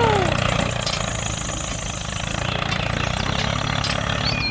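Diesel tractor engine idling steadily with a low, even throb, just after starting up.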